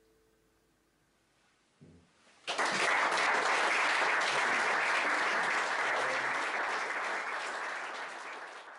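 The last acoustic guitar chord rings out and dies away. After a brief hush, a small audience suddenly breaks into applause about two and a half seconds in, and the applause fades out near the end.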